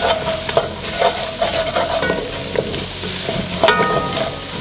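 Wooden spoon stirring chopped carrots, onions and garlic in a white enameled Dutch oven, scraping and knocking against the pot again and again, while the vegetables sizzle in hot oil.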